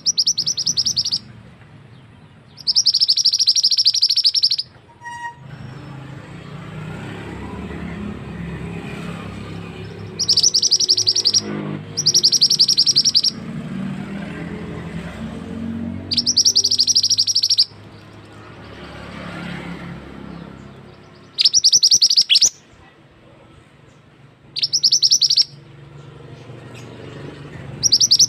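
Lure-call recording of a male mandi darah (mantenan) bird: a rapid, high-pitched, ticking trill in bursts of about a second, repeated about eight times with pauses between them.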